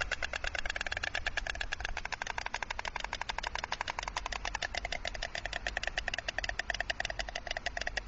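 Stork clattering its bill: a rapid, even rattle of claps that runs on without a break.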